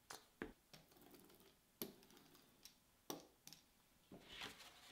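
Faint handling sounds on a workbench: a few sharp taps and clicks, with soft scraping about a second in and again near the end, as a plastic glue bottle is put down and wood glue is spread over a board.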